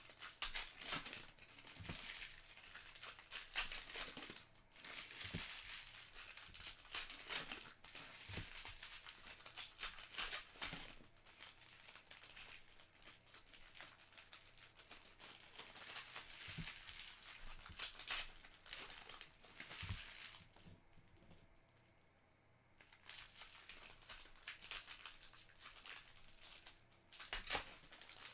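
Foil wrappers of Topps Chrome trading-card packs crinkling and tearing as the packs are ripped open by hand, in irregular bursts with a brief lull about three-quarters of the way through.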